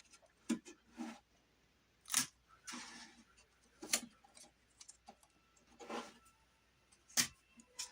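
Hands working with tape: scattered short clicks, taps and rustles, the sharpest about two, four and seven seconds in.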